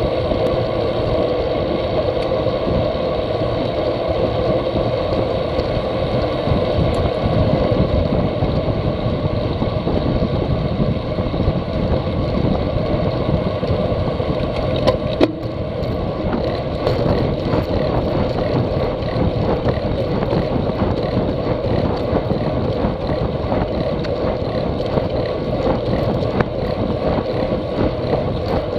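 Wind rushing over a handlebar-mounted action camera's microphone, with road bike tyre noise on asphalt, as the bike rides at speed. One sharp click about halfway through.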